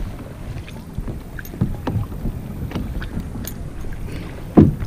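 Scattered knocks and taps from handling a chain pickerel in a mesh landing net on a plastic kayak, with a louder thump near the end.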